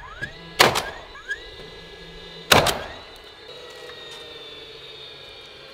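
DeWalt cordless coil roofing nailer driving nails into stone siding panels: its motor spins up with a short rising whine before each of two sharp shots about two seconds apart, the first followed quickly by a smaller rap. A faint high whine lingers afterwards.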